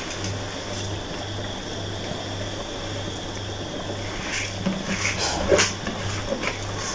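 Soaked rice poured from a plastic box into a pot of boiling beef broth, the grains sliding in and splashing into the liquid. A cluster of short sharp splashes and knocks comes from about four to six seconds in, the loudest a little past five seconds.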